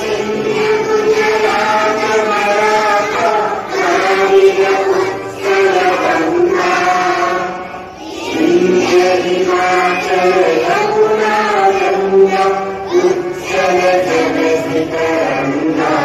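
A large group of schoolchildren singing a prayer together in unison, in long held phrases with a brief pause about halfway through.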